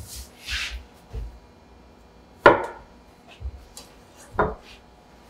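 Chef's knife cutting through a log of potato gnocchi dough and striking the wooden table twice, about two seconds apart, the first knock the louder. A brief scrape near the start and soft low thumps of hands working the dough on the table.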